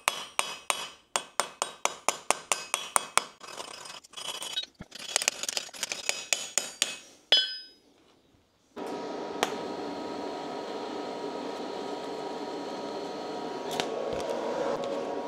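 Hand hammer striking a steel rivet on an anvil in rapid ringing blows, about four a second, upsetting the rivet to pre-form it so it starts to clamp the sheets together; a brief pause, a second flurry and one harder blow end the hammering. About a second later a steady whirring machine noise sets in.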